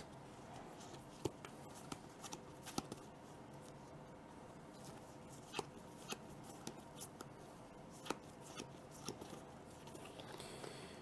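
Trading cards being handled on a tabletop: faint, scattered clicks and taps as cards are picked up and set down.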